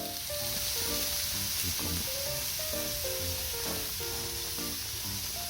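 Meat sizzling as it fries, a steady hiss, with background music of held notes over it.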